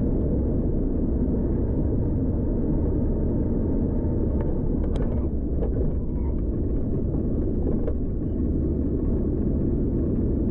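Steady road and engine rumble inside a moving car's cabin at freeway speed, with a few faint clicks about halfway through.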